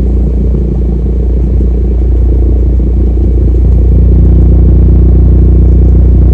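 Hyundai i30N's 2.0-litre turbo four-cylinder droning through a custom valved exhaust, with its mid-resonator deleted and one side straight-piped, heard inside the cabin at a steady cruise of about 70 mph. About four seconds in the drone grows louder and fuller.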